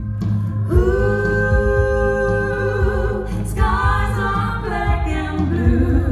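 Live concert music: voices singing long held notes in harmony over a steady low bass.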